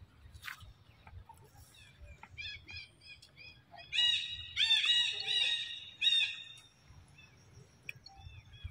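Bird chirping: a quick run of short, high chirps, loudest about four to six seconds in.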